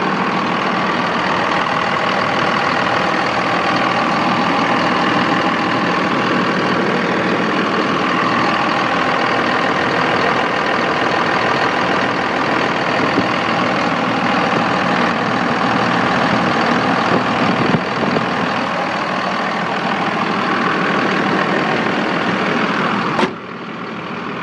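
Dodge Ram's 5.9-litre Cummins 24-valve inline-six turbodiesel idling steadily, heard close up in the open engine bay. Near the end a sharp knock, after which the engine sounds quieter.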